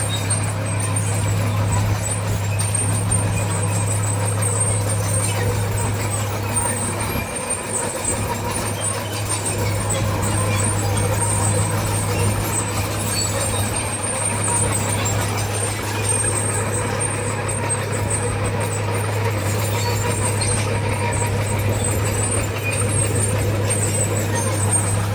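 Heavy diesel earthmoving machinery running steadily, a constant low drone with no change in pitch.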